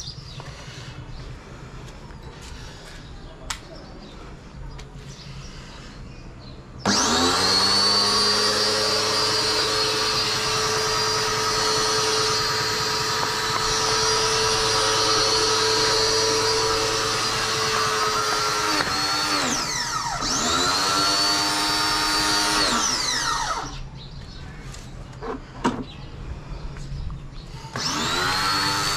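Ingco 1400 W electric pressure washer's motor starting abruptly about seven seconds in and running with a steady high whine while the gun sprays. Near the end it slows and picks up again twice, stops, then starts up again shortly before the end.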